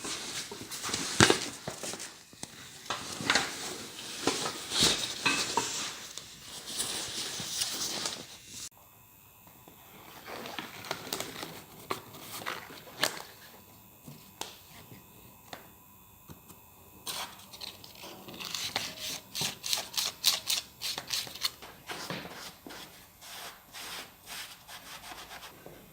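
Handling noise from a dry suit and its latex neck seal being moved and set up: rustling and crinkling with scattered clicks and knocks, and a quicker run of clicks past the middle.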